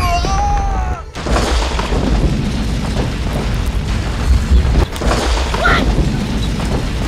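Loud, continuous low booming and rumbling, like explosion sound effects. It cuts off sharply about a second in and then comes back.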